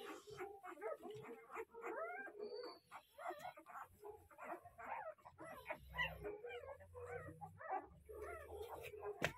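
Newborn puppies squeaking and whimpering: a steady run of short, high cries, many of them rising in pitch.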